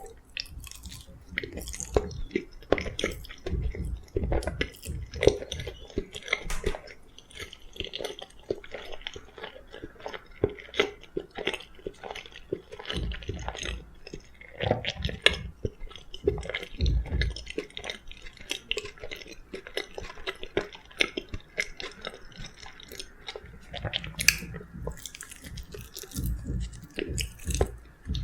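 Close-miked chewing and biting of soft food, with irregular wet mouth sounds.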